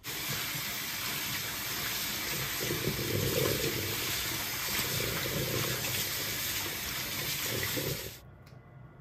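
Tap water running into a stainless steel bowl of fresh basil leaves as hands swish and rinse them in the kitchen sink. The steady rush of water cuts off suddenly near the end.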